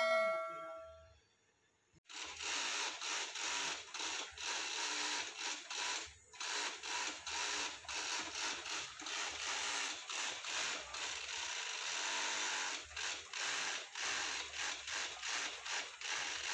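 A brief ringing tone at the very start, then, after a second of quiet, a Juki feed-off-the-arm industrial sewing machine runs at speed, stitching a denim seam with a fast, even clatter that pauses briefly about six seconds in.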